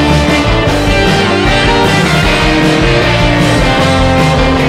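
Background rock music with guitar over a steady beat.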